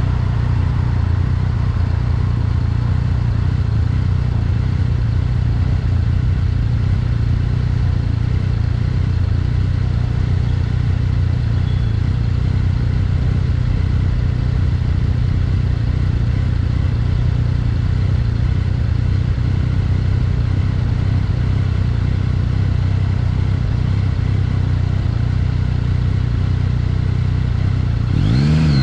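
Yamaha XSR900's three-cylinder engine running steadily at a constant pitch. Near the end it revs up sharply and drops back.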